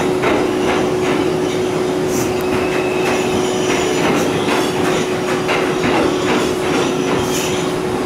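Bombardier R142 subway car running at speed through a tunnel, heard from inside the car: a loud steady running noise with a steady hum held throughout, and frequent sharp clicks and clacks as the wheels cross rail joints.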